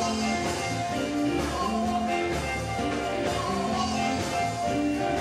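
Live gospel band music with a steady beat and voices singing, played loud in a church sanctuary.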